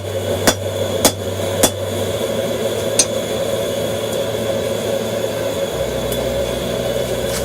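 Hammer blows on a hot steel canister of powdered steel being forge-welded for canister Damascus: four strikes about half a second apart, then one more about three seconds in. A propane forge runs steadily underneath.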